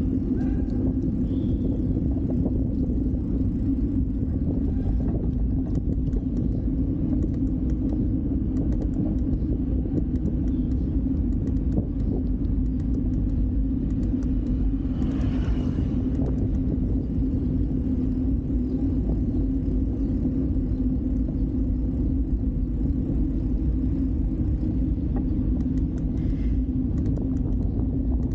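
Steady low rumble of riding noise picked up by a camera on a moving bicycle, with a short hiss about halfway through and another near the end.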